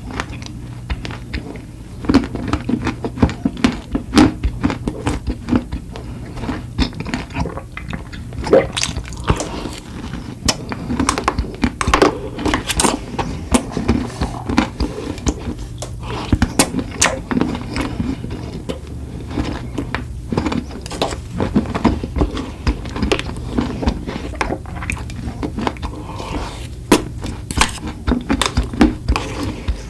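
Close-miked eating sounds: wet chewing, lip smacks and soft crunches of sweets and ice cream, in a dense, irregular string of short clicks.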